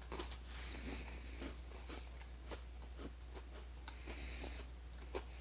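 Faint mouth and breathing sounds of a person chewing a hard chocolate-filled cracker, with small clicks and a breathy exhale about four seconds in, over a low steady hum.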